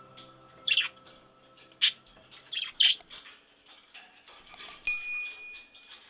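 Parrots chirping in short calls, three or four over the first three seconds, over soft background music that fades out. Near the end come a few clicks and a ringing, chime-like ding, the sound effect of a subscribe-button animation.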